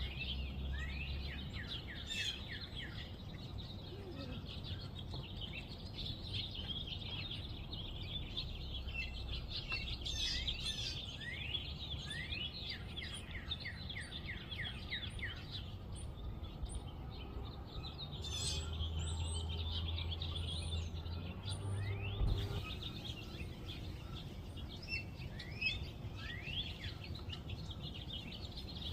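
Several small birds chirping: many short, high chirps in quick runs, over a steady low rumble.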